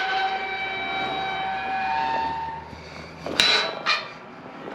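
Metal ranch gate swinging, with a squeal of several steady tones lasting about two and a half seconds, then two sharp metallic clanks about three seconds in as it swings to or latches.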